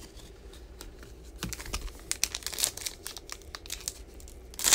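Foil wrapper of a football trading-card pack crinkling as it is handled and worked open, with scattered light clicks and a louder burst of crinkling near the end.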